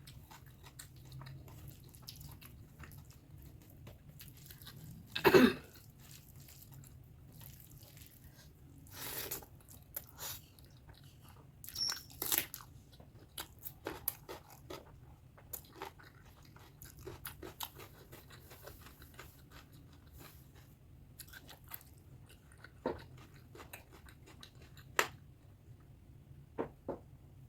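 Close-miked ASMR chewing and mouth sounds from eating pork fat curry with rice: irregular wet smacks and clicks, with one much louder sound about five seconds in.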